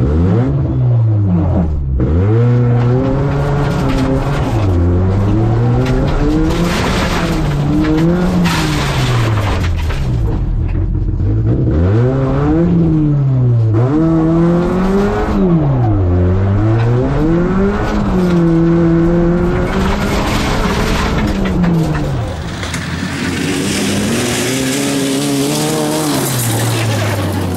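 Opel Astra GSi rally car's 2.0-litre four-cylinder engine heard from inside the cabin, the revs climbing hard and dropping back over and over as the car is driven flat out. About 22 seconds in, the sound switches to the car heard from outside as it slides past on loose gravel, with a hiss of spraying stones.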